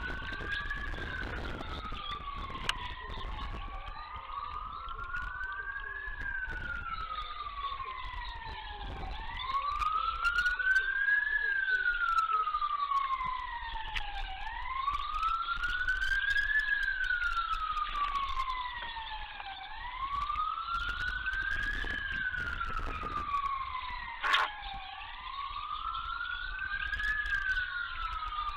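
A siren wailing in slow rise-and-fall sweeps, one cycle about every five seconds, with a fainter overlapping sweep out of step with it. A single sharp click cuts through about three-quarters of the way in.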